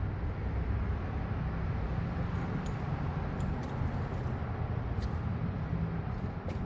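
Steady low rumble, with a few faint clicks about a second or two apart.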